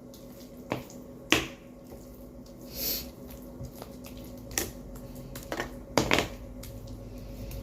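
Scattered sharp clicks and knocks of a spoon against a dish as a casserole mixture is worked, about six in all, with a brief hiss near three seconds in, over a steady low hum.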